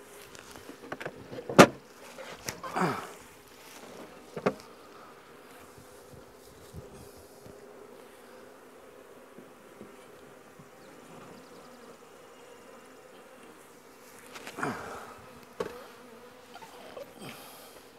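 Honey bees buzzing in a steady hum around an open wooden hive freshly stocked with nuc frames. Several sharp knocks and scrapes of the wooden hive parts being handled and set down: the loudest comes about a second and a half in, a few more follow shortly after, and another cluster comes near the end.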